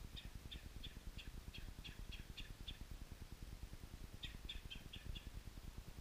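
A small songbird calling in a run of about nine short, even notes, roughly three a second, then a shorter run of five faster notes about four seconds in, over a low steady rumble.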